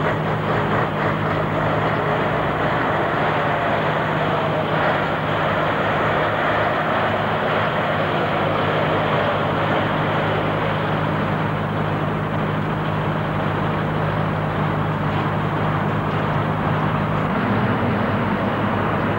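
Diesel lorry engines idling: a steady low hum with some rumble, its pitch shifting near the end.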